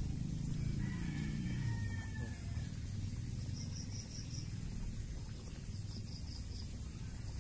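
A rooster crowing once, faintly, about a second in, over a steady low rumble. Two short runs of quick high chirps come later.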